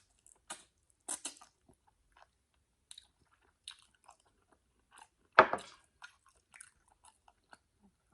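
A person chewing lobster tail meat dipped in butter sauce, eaten close to the microphone: irregular wet smacks and clicks, with one louder burst about five and a half seconds in.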